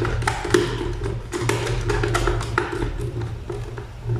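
Irregular sharp clicks and taps of a hand fitting a wire onto the terminal of a contactor's add-on timer block.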